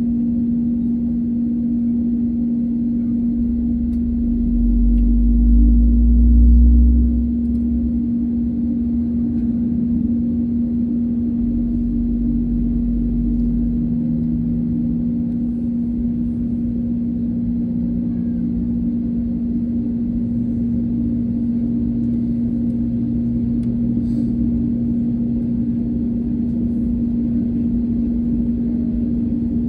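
Airbus A320neo cabin noise heard from a window seat while the jet moves on the ground: a steady hum from the engines and cabin air system. A deeper rumble swells from about four to eight seconds in, and a shorter one follows around twelve seconds in.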